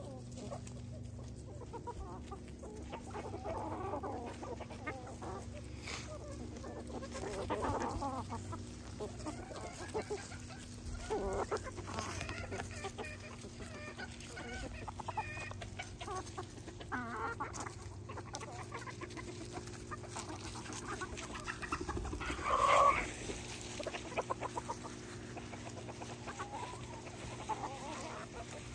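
Backyard chickens clucking in many short, repeated calls, with one louder call about three-quarters of the way through.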